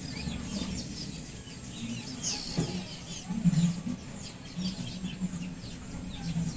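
Small birds chirping in the background: many short, quick chirps, one after another.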